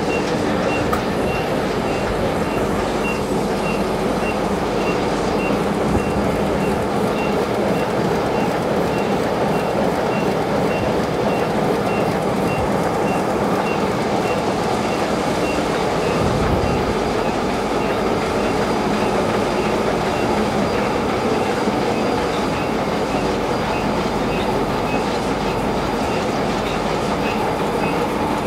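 Heidelberg Speedmaster sheet-fed offset printing press running, a steady loud mechanical clatter with a faint regular ticking.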